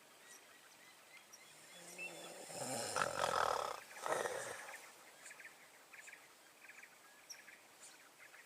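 A loud, low animal call from an unidentified wild animal, lasting about a second and then repeated briefly, about a third of the way in. Faint high chirping of birds or insects is heard through the rest.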